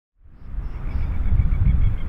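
Low, uneven rumble of a Boeing 767-300ER's GE CF6-80C2 turbofans on approach, fading in from silence over the first second, with a faint rapid high chirping above it.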